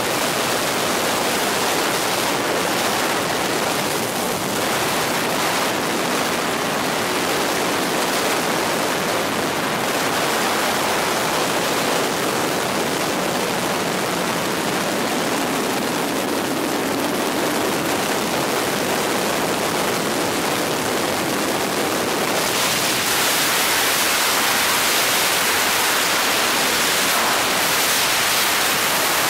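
Steady rushing noise of a helicopter in flight, its engine, rotor and passing air blended into one even hiss with no distinct beat. It turns brighter and a little louder about three quarters of the way through.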